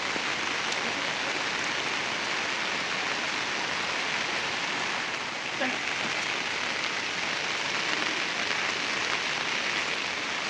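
Steady heavy rain falling, an even hiss, with a single small knock a little past halfway.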